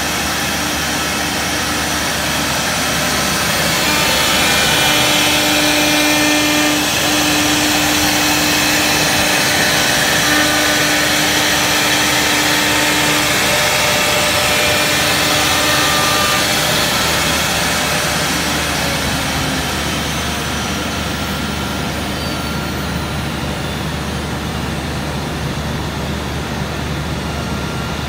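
CNC router with three 4.5 kW, 18,000 rpm spindle motors running and cutting grooves into a panel: a loud steady machining noise with a high steady whine. The whine stops a little past halfway and the noise eases slightly.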